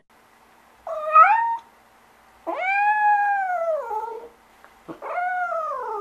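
Domestic cat meowing three times: a short rising meow about a second in, then a long drawn-out meow, then a third meow that sinks in pitch near the end.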